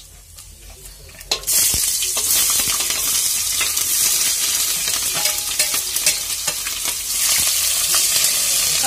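Sliced onions, green chillies and garlic tipped into hot oil, starting to sizzle loudly all at once about a second in and then frying steadily, while a metal spatula scrapes and stirs them against the metal pot with small clicks.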